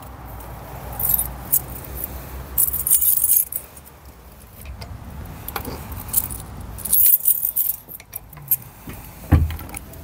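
Light metallic jingling and clinking in several short bursts, with a dull thump near the end, over a faint low rumble.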